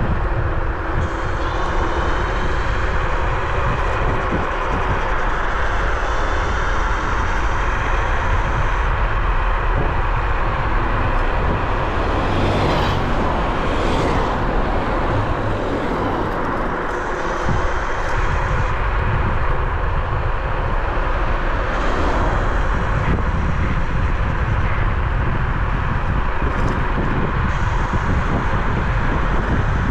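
Wind rushing over the microphone and tyre noise as a Bluetran Lightning 72V electric scooter is ridden at speed, dense and low, with a faint high whine that comes and goes.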